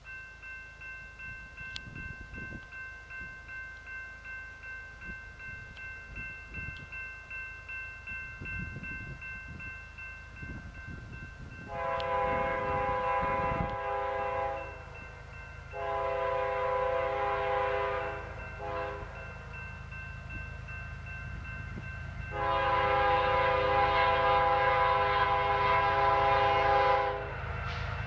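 A grade-crossing bell ringing with regular strokes about twice a second, then an approaching BNSF diesel locomotive's air horn sounding the grade-crossing signal: long, long, short, long. A low rumble of the train runs under it.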